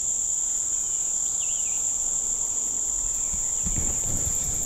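A steady, high-pitched chorus of insects, one unbroken shrill drone.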